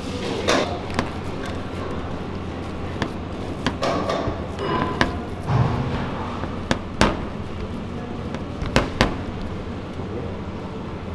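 Hands mixing and pressing a soft potato and spinach mixture on a ceramic plate, with scattered sharp clinks and knocks against the plate and steel counter over a steady kitchen hum.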